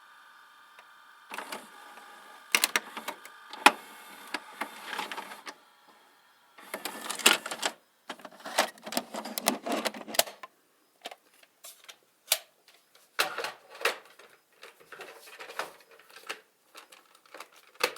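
VHS videocassette recorder's tape mechanism working: a faint hum, then a run of irregular mechanical clicks and clunks with rattling stretches, like a cassette being handled, loaded or ejected.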